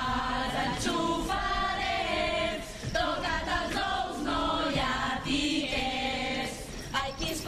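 A chorus of voices singing together on held, sustained notes that change pitch every second or so.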